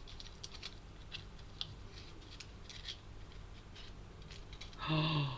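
Foil wrapper on a half pan of watercolour paint being peeled open by hand, crinkling in small, irregular crackles. A short voiced sound, like a brief exclamation, near the end.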